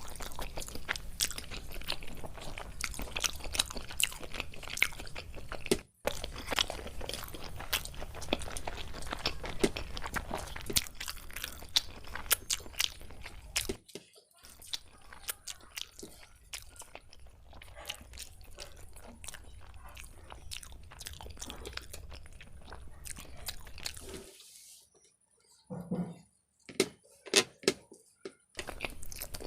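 Close-up eating sounds of people chewing chicken biryani: steady wet chewing with many rapid mouth clicks, smacks and bites, and some crunching. The sound drops out briefly a few times, with a longer silent gap near the end before a few louder bites.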